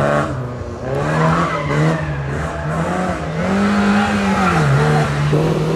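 Historic rally car's engine revving hard under acceleration, its pitch dipping and rising with gear changes: a dip just before a second in, then a higher climb about two-thirds through that falls away.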